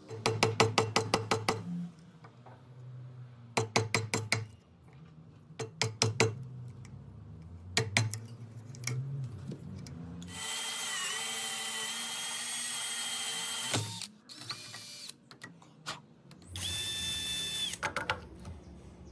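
Power drill driving a hole saw into wood. It starts with four short bursts of rapid clicking over a low hum, then runs steadily for about three seconds and again for about a second and a half.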